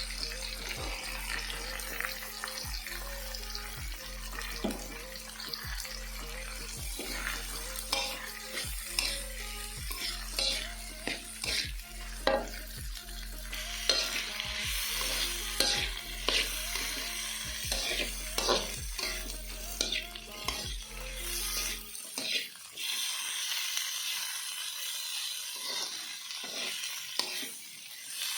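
Food stir-frying and sizzling in a pan, with a spatula repeatedly scraping and clicking against the pan. The sizzle gets louder about halfway through.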